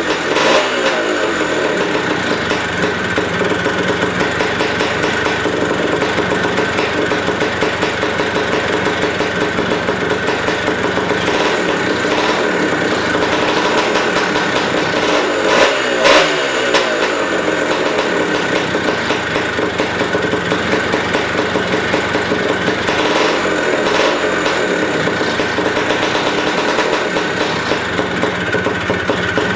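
Vintage Rickman dirt bike engine running at a steady idle, with a short throttle blip about halfway through whose revs fall back to idle.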